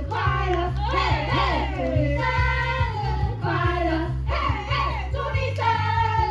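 A group of voices, children's among them, singing a song together over backing music.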